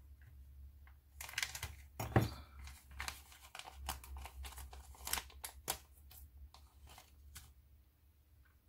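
Thin plastic bag crinkling in the hands as it is opened and a clear plastic parts sprue is taken out: a run of uneven crackles and rustles that dies away near the end.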